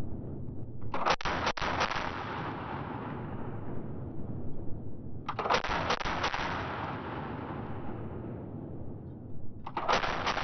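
Soviet DP-27 light machine gun in 7.62x54R firing three short bursts of automatic fire, about one second in, about halfway through, and again near the end. A long fading echo hangs after each burst.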